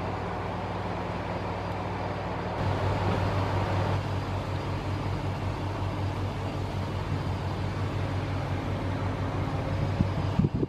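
Diesel engines of a John Deere 8310R tractor and a self-propelled forage harvester running steadily under load while chopping grass for silage, a continuous low drone that grows a little stronger and more pulsing a little under three seconds in. A couple of sharp knocks near the end.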